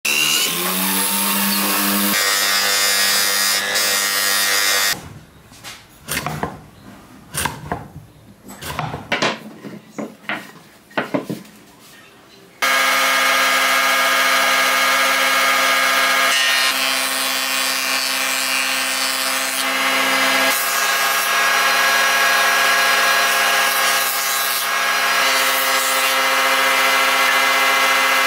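A power drill's motor runs steadily in a wooden drill-press stand. Then come several seconds of short, scattered bursts of tool noise. From about halfway a combination woodworking machine runs loudly and steadily as a board is fed across its jointer cutterhead.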